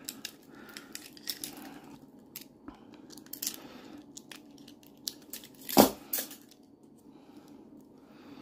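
Small metal clicks and rattles of ASP handcuffs being worked with a lock pick, with one much louder metallic clack about six seconds in and a smaller one just after.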